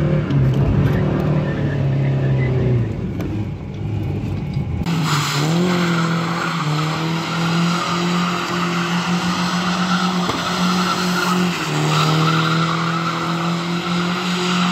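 FSO Polonez engine running, heard from inside the cabin with the revs dropping. About five seconds in it switches to the car drifting: the engine held at steady high revs with tyres squealing, the revs dipping briefly near the end.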